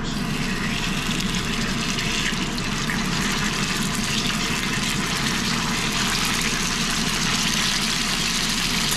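Floured round steak sizzling in a cast-iron skillet of hot oil as the pieces are laid in: a steady, crackling fry. The pan holds far more oil than the tablespoon the recipe calls for.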